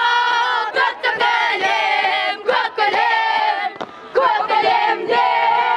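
Group of schoolchildren in a marching drill squad chanting in unison. They give four loud, drawn-out shouted phrases, each about a second long, with short breaks between them.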